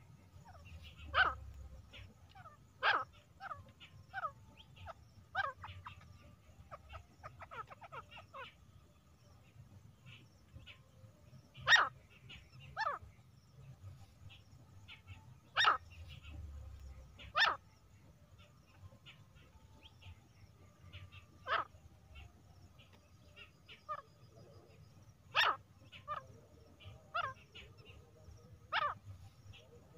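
Female grey francolin calling: short, sharp, bark-like single calls, some in pairs, repeated at irregular gaps of one to a few seconds over a low background rumble.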